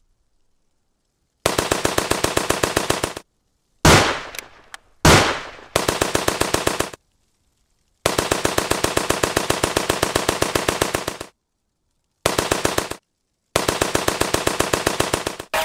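Machine-gun fire in long rapid bursts with short pauses between them, starting about a second and a half in. Two single, louder blasts with fading tails come about four and five seconds in.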